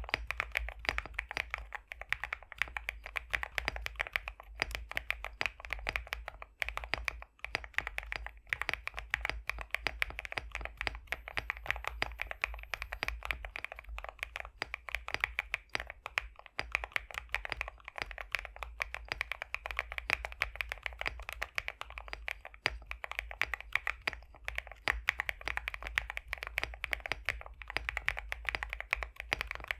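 Fast, continuous typing on an Epomaker x Createkeebs High65 v2 mechanical keyboard with pre-lubed BSUN X linear switches: a dense stream of key clacks, tuned for a thocky, creamy sound. The typing breaks off briefly about seven seconds in.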